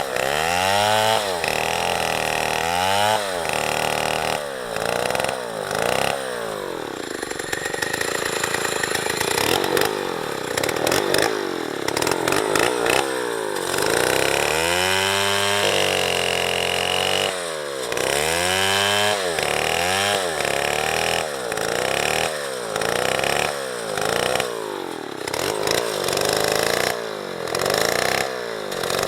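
Small chainsaw cutting into a tree. Its engine revs up and drops back over and over, with a few longer stretches held at speed.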